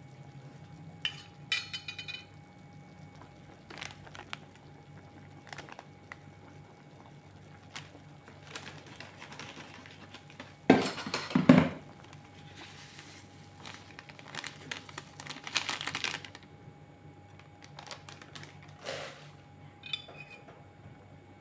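Metal spoon clinking and scraping against a small saucepan of boiling meatball soup, in scattered bursts. The loudest is a clatter of knocks about ten to twelve seconds in.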